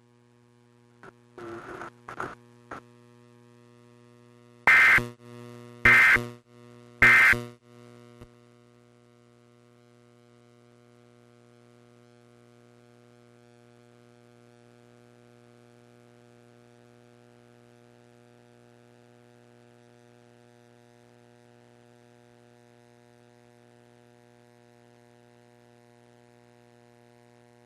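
Emergency Alert System end-of-message data tones: three short, loud bursts about a second apart, with a few fainter blips just before them. They are followed by a steady low hum with overtones.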